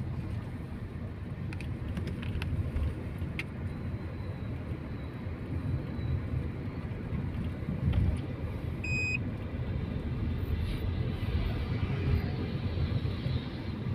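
Car cabin noise while riding in a taxi: a steady low engine and road rumble, with a short electronic beep about nine seconds in.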